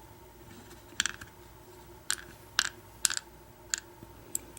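About six light, separate metallic clicks of small padlock pins and tools being handled and set down on a work surface, as tumbler pins are sorted out of a disassembled lock.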